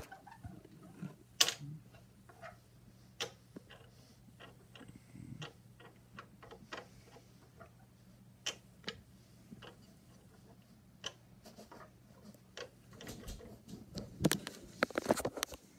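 Handling noise: scattered light clicks and taps, a few every second, growing busier and louder with rustling for a couple of seconds near the end.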